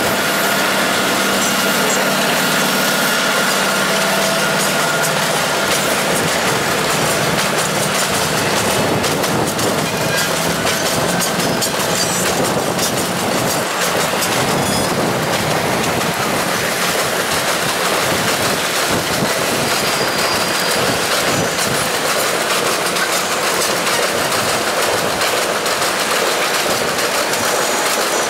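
Diesel-hauled passenger train running along the tracks: a steady engine drone, with the wheels clattering rhythmically over rail joints and points. The clatter is busiest around the middle.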